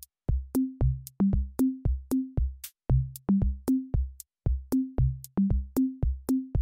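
Background electronic music: a looping drum-machine beat of sharp hits with short low pitched notes that step upward in repeating groups.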